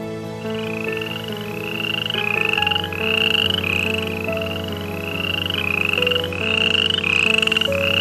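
A frog calling over and over, about two short rising, pulsing calls a second.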